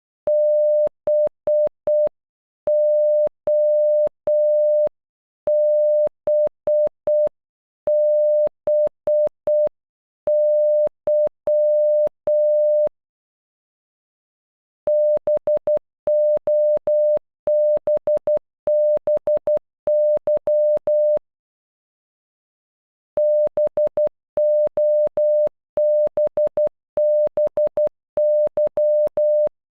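Computer-generated Morse code beeps, a single steady tone keyed on and off, spelling "BOBBY" (-... --- -... -... -.--). The word is sent once slowly at half speed, then twice at normal speed, with pauses between.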